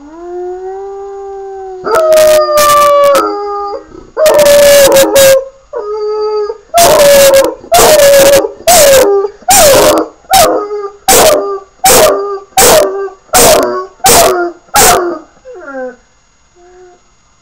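Yellow Labrador puppy howling: long drawn-out howls at first, then a quick run of about a dozen short howls, each dropping in pitch, about one and a half a second. It trails off into a few quieter cries near the end.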